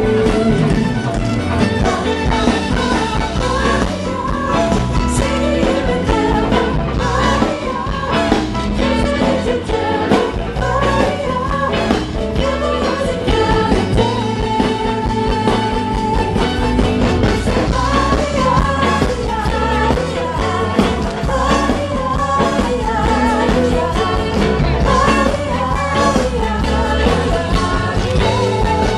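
Rock song with a lead vocal over a steady beat.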